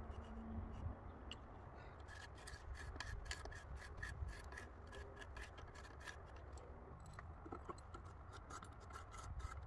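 Hand socket ratchet clicking in quick, faint runs as it turns a 3/8-inch masonry screw anchor through a wooden post into brick.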